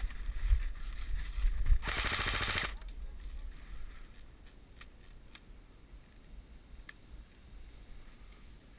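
An airsoft rifle fires one short full-auto burst of rapid shots, just under a second long, about two seconds in. A few faint single clicks follow later.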